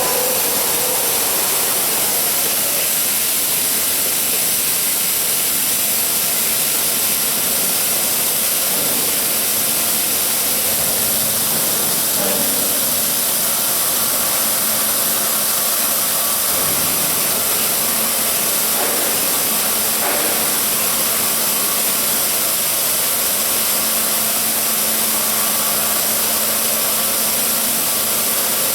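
CNC beam drilling machine running: a steady, loud hiss with a faint continuous machine hum underneath.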